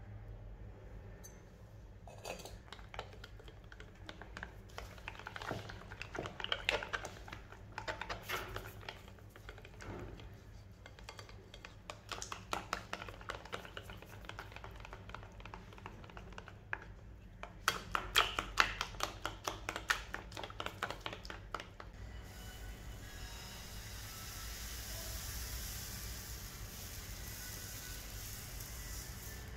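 A silicone whisk beats pancake batter in a glass bowl, making rapid clicking and slapping in bursts. About three-quarters of the way through, the whisking stops and a steady sizzling hiss takes over as batter cooks on a hot flat crêpe pan.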